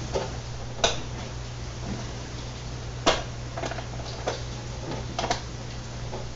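Hand tools working the mounting bolts of a car's turn-signal lamp: about seven sharp metal clicks and knocks at uneven intervals, the loudest about one and three seconds in, over a steady low hum.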